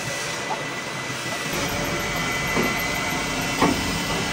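Steady machinery noise with a thin high whine, a deeper rumble coming up about a third of the way in, and two short knocks near the end.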